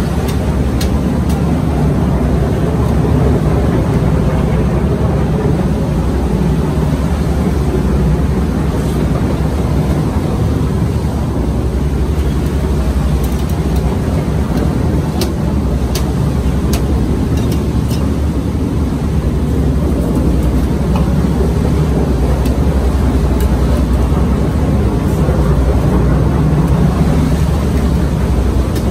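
Boat engine running steadily with a constant low hum, with a few light clicks from knife work on the fish around the middle.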